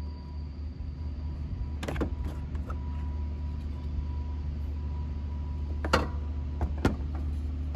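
A steady low mechanical hum, with a few sharp clicks and knocks about two seconds in and twice near the end as an LED pod fog light on its metal bracket is handled against the plastic fog light housing of the bumper.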